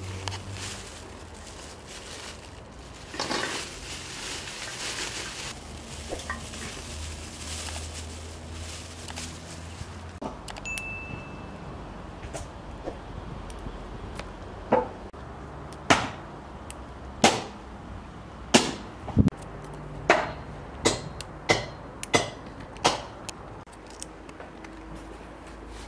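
Fresh green beans snapped by hand, about nine sharp, crisp snaps roughly a second apart in the second half, after some rustling of beans earlier on.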